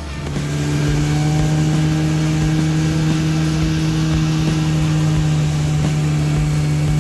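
Outboard motor of a river speedboat running steadily at a constant throttle, its engine note holding one even pitch.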